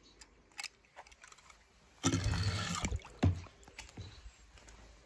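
A small diecast toy car splashing into a shallow tub of water: a few light clicks, then a rushing splash of a little under a second about two seconds in, followed by a short low thump.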